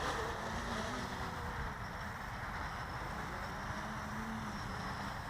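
Wind rumbling on the microphone, with a faint, wavering hum from a Blade 350 QX quadcopter's electric motors that rises slightly about four seconds in.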